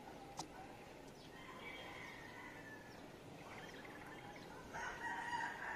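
A rooster crowing faintly, a louder crow with a falling end near the end. One sharp click about half a second in.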